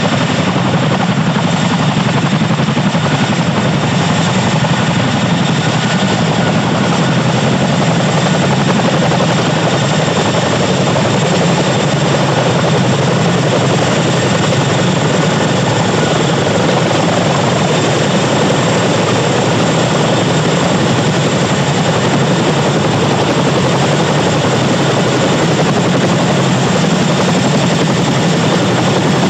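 Boeing CH-47F Chinook tandem-rotor helicopter hovering low over water: loud, steady rotor and engine noise with a thin high turbine whine.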